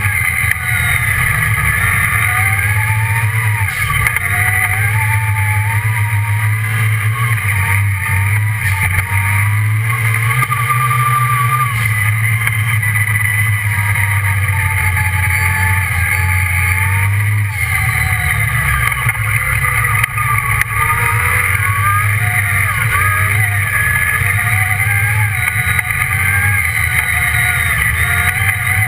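Redline Revolt off-road buggy's engine running while driving a dirt track, its pitch rising and falling with the throttle, with a few knocks from bumps.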